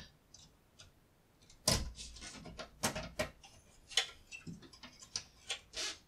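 Irregular sharp clicks and knocks as a stacked circuit board is rocked and pulled to unplug its pin-header connector from the board below. The loudest knock comes about a second and a half in.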